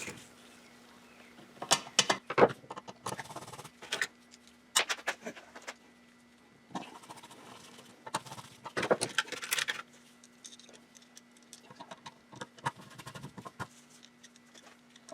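Small plastic and metal parts clicking, knocking and scraping in irregular bursts as a Briggs & Stratton carburetor is handled and fitted back onto its fuel tank. A faint steady hum runs underneath.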